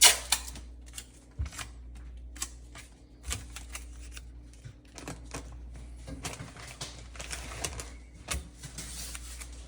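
Masking tape being handled and applied to a cabinet opening: scattered sharp clicks and taps as it is pulled, torn and pressed down, with a longer stretch of rustling from about six seconds in.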